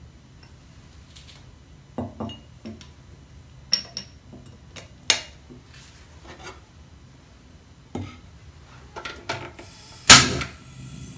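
Kitchen utensils and dishes handled during cooking prep: scattered knocks and clinks, the loudest a sharp clink about ten seconds in with a brief ring after it.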